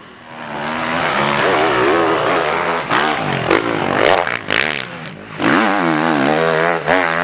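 Motocross bike engines revving hard on a sand track, pitch rising and falling with throttle and gear changes; the sound eases briefly about five seconds in, then a second bike comes in loud.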